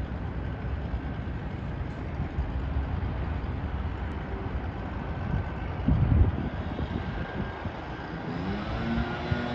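Outdoor city ambience: a steady low rumble of distant road traffic, with a louder low surge about six seconds in. Music fades in near the end.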